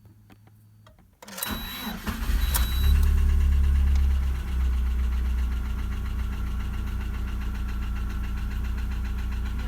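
Warm restart of a Lada Priora engine built on a VAZ 2108 block and crankshaft with Priora pistons: it cranks about a second in, catches and revs briefly, then settles to a steady idle. The knock persists at idle, and the owner puts it down to a piston.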